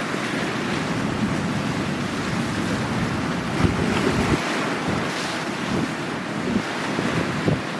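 Sea waves washing steadily, with wind buffeting the microphone in gusts.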